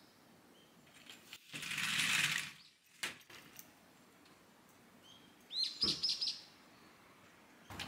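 A sliding glass door being opened, a brief rushing noise about two seconds in followed by a click. Near the end, a small bird outside gives a quick run of four or five high chirps.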